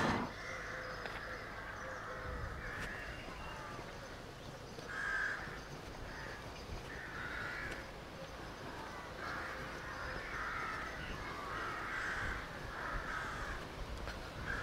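Crows cawing: a series of short, harsh caws, most of them from about five seconds in onward, over a faint low background rumble.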